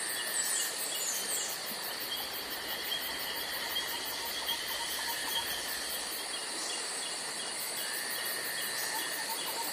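A steady chorus of chirping insects: a constant high buzz with a rapid, repeating pulsed trill over it, and a few brief chirps in the first second or so.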